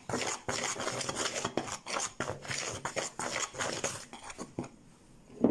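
Back of a table knife scraping and clicking against a plastic mixing bowl in quick, repeated strokes as it cuts milk into a flour, lard and butter crumb to bring pastry dough together. The strokes die down about four seconds in, and a single dull thump comes right at the end.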